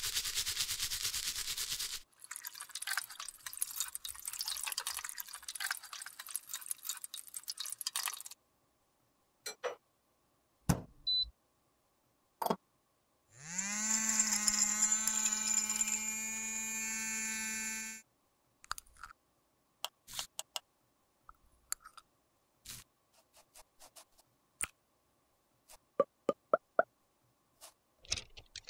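A small stiff brush scrubbing a soapy metal compact pan, a dense scratchy rubbing for about the first eight seconds. About thirteen seconds in, a small electric grinder with a glass cup spins up with a rising whine, runs steadily for about four seconds grinding pressed makeup powder, then stops. After it, scattered light clicks and taps.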